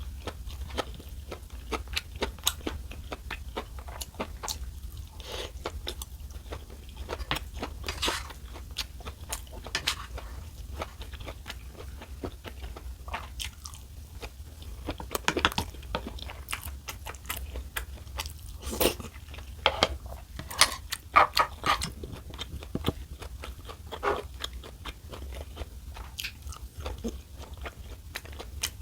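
Close-miked eating: a person chewing and crunching food, with many short crackles and clicks and louder clusters of crunches in the second half.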